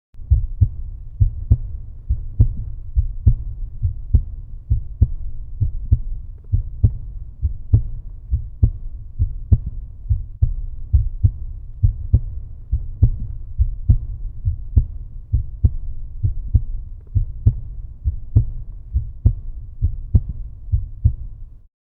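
Recorded heartbeat: low, soft thumps in a steady, even rhythm of about seventy beats a minute.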